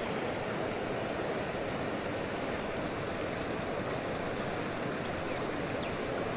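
Steady rush of a river running over rocks.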